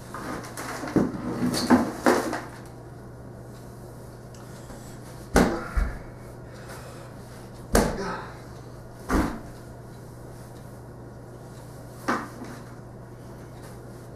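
Knocks and thuds on a wooden parquet floor from a box duct-taped to a foot being set down as its wearer hops and steps about: a quick cluster of scuffs and knocks in the first two seconds, then four single sharp knocks a few seconds apart. A steady low hum runs underneath.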